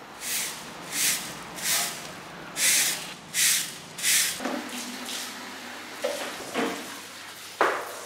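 A long-handled broom swept in strokes, about six scratchy swishes evenly spaced, one every second or less. After that come a few short scrapes and knocks, fitting a floor squeegee pushed across a wet tiled floor.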